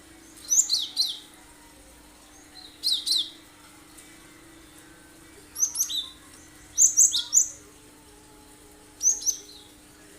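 Cinereous tit (gelatik batu) singing in short bursts of two to four sharp, high notes that drop steeply in pitch, about five bursts in ten seconds.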